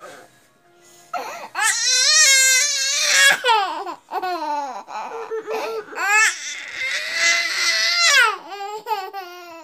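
A sick toddler crying hard: long, high-pitched wails broken by shorter sobbing cries.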